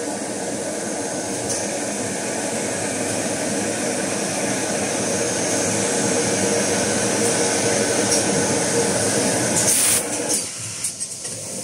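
Tissue-roll film-wrapping machine running: a steady mechanical drone with a hum and a thin high whine. A short hiss about ten seconds in, after which the noise drops.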